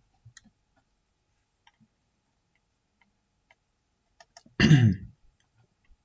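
A short voiced throat-clearing sound about four and a half seconds in, with faint scattered clicks of a computer mouse before it.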